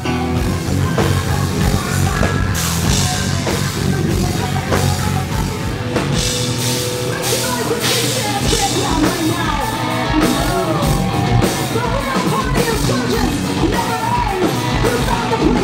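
Live rock band playing loud: electric guitars over a steady drum-kit beat, with singing.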